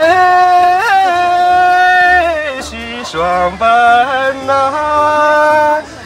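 A man singing solo in a high voice: long held notes with quick turns, a short break about halfway, and a last long note that stops just before the end.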